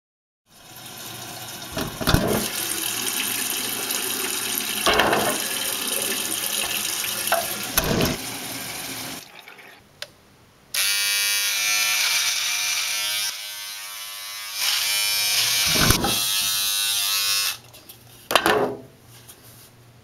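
Water running from a tap into a bathroom sink, with a few knocks, cuts off about nine seconds in. An electric shaver then buzzes in two runs of about three seconds each.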